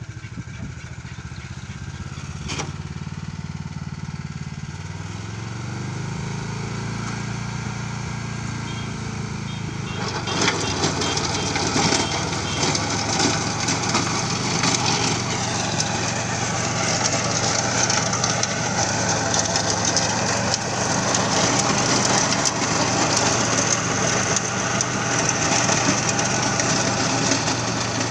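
Swaraj Code mini tractor's 12 hp, 380 cc engine running steadily while driving its W85 Roto Weeder rotary tiller. About ten seconds in, the sound gets louder and rougher as the tiller churns through dry soil.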